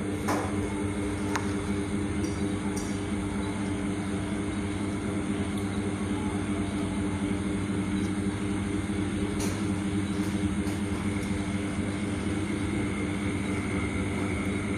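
Steady machine hum with several constant low tones and a faint high whine, with a few faint clicks.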